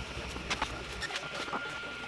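Steady whir of a Creality Ender 3 Pro's cooling fans, with a thin steady whine joining a bit after a second in. Over it come paper rustling and a few light clicks as a sheet is slid under the nozzle to level the bed.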